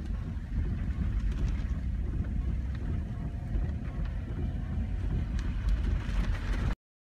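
Steady low rumble of a vehicle driving through heavy storm rain, heard from inside the cabin, with faint ticks over it; it cuts off suddenly near the end.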